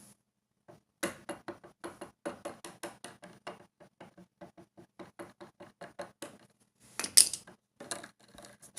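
Skateboard wheel and bearings being worked on a titanium truck axle: a quick, even run of light metallic clicks, about five a second, then a louder scrape near the end.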